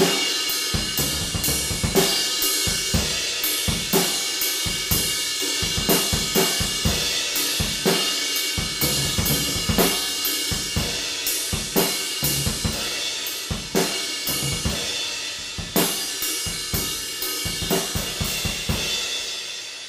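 Drum kit played in a steady groove of bass drum, snare and cymbals, featuring a Sabian APX 24-inch ride cymbal. Near the end the playing stops and the cymbals ring on, fading.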